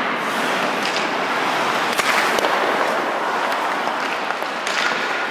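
Ice-hockey goalie's skates and leg pads scraping and sliding across the ice, a steady hiss, with a few sharp knocks, two of them about half a second apart near the middle.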